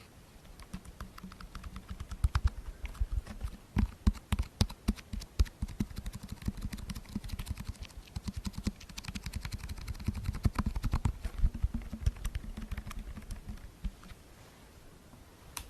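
ASMR tapping: rapid, irregular taps, several a second, some with a duller knock, starting about half a second in and dying away near the end.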